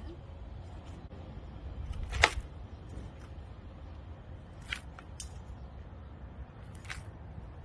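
Small hand trowel digging and scooping garden soil: a few short sharp clicks and scrapes, the loudest about two seconds in, over a steady low rumble.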